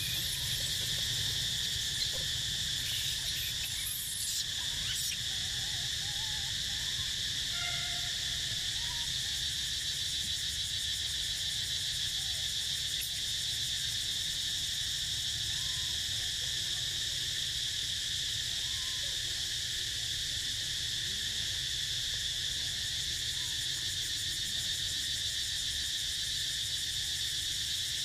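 Steady, unbroken chorus of insects: a high-pitched drone in several layered bands, with a few faint short chirps on top.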